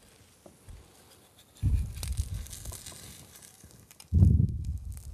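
A spoon scraping and pushing under a patty of green protein batter in a frying pan, trying to turn it, in two rough scraping bursts about one and a half and four seconds in, with crackling from the cooking batter.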